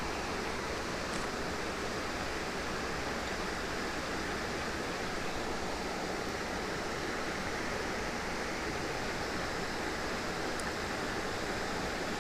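Steady rushing of running water, which the angler takes for a stream flowing in nearby.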